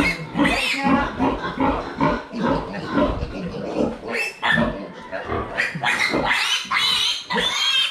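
Piglets squealing in repeated shrill cries, one of them held upside down by a hind leg.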